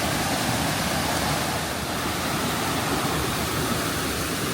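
Rushing water of a fast-flowing mountain stream, a steady, even rush with no breaks.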